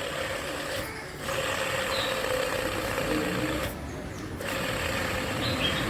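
Ceiling fan turning with a steady mechanical rattling hum and a faint steady tone, dropping away briefly about a second in and again near four seconds. The noise comes from the fan motor's bearings, which need replacing.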